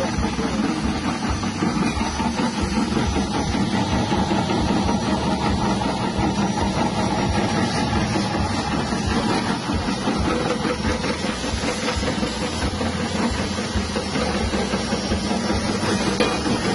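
Electric cassava and potato chip slicing machine running steadily, driven by its 180-watt electric motor.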